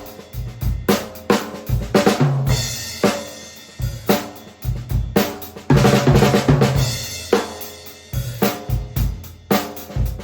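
Drum kit played in a groove with fills, built around a 14 x 8 inch hard maple stave-shell snare drum at medium tuning, along with bass drum and cymbals.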